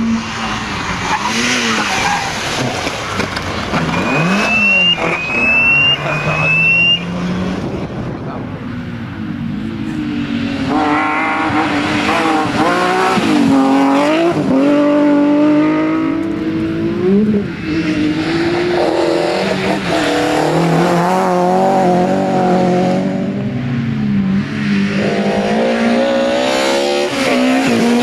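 Rally car engine revving hard on a stage, its pitch climbing through each gear and dropping at every shift, over and over.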